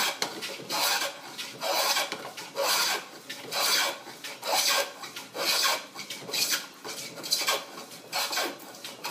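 Stanley No. 72 chamfer plane cutting a chamfer along the edge of a board: about ten quick pushing strokes, roughly one a second, each a rasping hiss as the iron slices a shaving off the wood.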